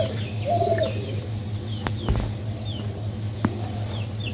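Birds calling: a few short, flat, cooing calls among many brief high chirps from small birds. Two sharp clicks come about two and three and a half seconds in, over a steady low hum.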